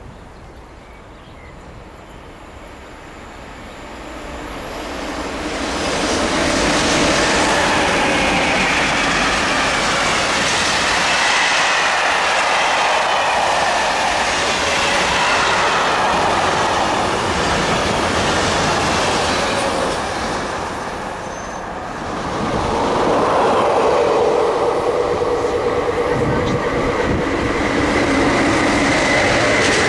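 Electric freight trains hauled by SNCF BB 27000 locomotives running past: wheels rolling over the rails, growing loud over the first few seconds as the first train with flat wagons arrives and passes. There is a brief dip about 21 seconds in, then a second train hauling silo wagons comes through, just as loud.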